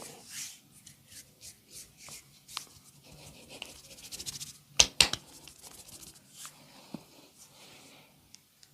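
Hands rubbing over skin in a massage. About four seconds in comes a quick run of light clicks, then two sharp snaps about a fifth of a second apart.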